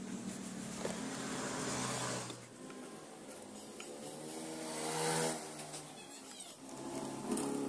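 Motor vehicles passing by: one fading out about two seconds in, then a louder one whose engine pitch rises, peaks about five seconds in and drops away.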